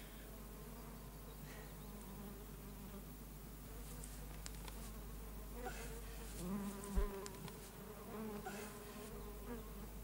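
A buzzing insect droning steadily, shifting in pitch and growing louder about six seconds in. A short low thump comes about seven seconds in.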